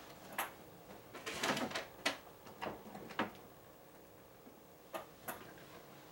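Someone rummaging through storage off to the side: sharp clicks and knocks of doors or drawers being opened and shut, with a short rattle of handled objects about a second and a half in and two more clicks near the end.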